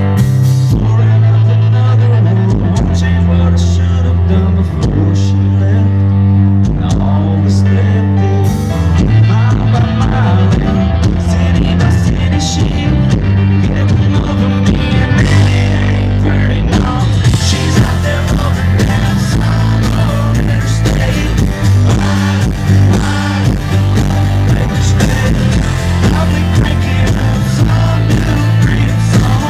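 Live country band playing an instrumental break between sung lines: electric guitar over drums and heavy bass, loud and continuous.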